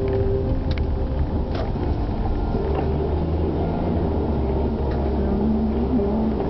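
Car cabin noise while driving: a steady low engine and road rumble that grows heavier about two and a half seconds in, as the car picks up speed on a straight road.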